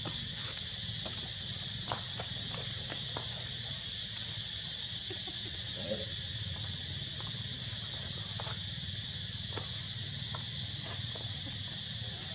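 Steady high-pitched insect chorus drones throughout over a low steady rumble, with scattered faint clicks and rustles. A brief faint squeak comes about six seconds in.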